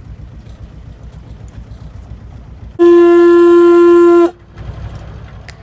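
A horn blown once in a loud, steady blast of about a second and a half, its pitch sagging as it stops, over the low pulsing rumble of the boat's engine as it gets under way.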